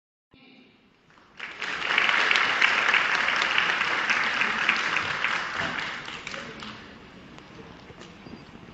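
Audience applauding in a hall: the clapping swells up about a second in, holds for several seconds, then dies away over the last few seconds.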